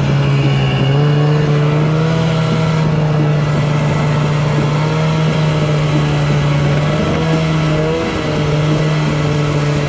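Snowmobile engine running at a fairly steady speed, its pitch wavering slightly and dipping a little about eight seconds in.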